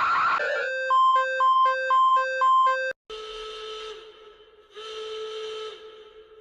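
Electronic alarm tones: a loud rapid beep pattern alternating between a low and a higher pitch, about two pairs a second for two and a half seconds. After an abrupt cut come two quieter long steady tones, each a second or more, the second fading out.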